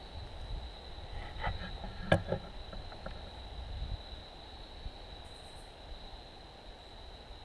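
Insects trilling steadily at one high pitch, over a low rumble. A sharp click about two seconds in, among a few softer knocks.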